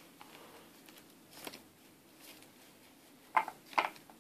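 Quiet room tone with a faint click about a second and a half in and two sharper taps about half a second apart near the end, from sleeved playing cards being handled and set down on a playmat.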